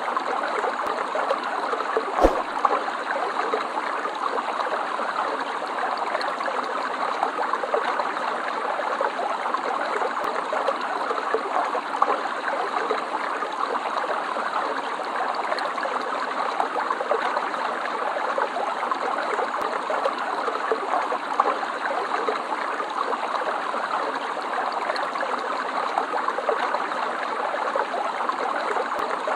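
Water of a stream flowing and trickling steadily, an even, unbroken wash of sound, with a single brief knock about two seconds in.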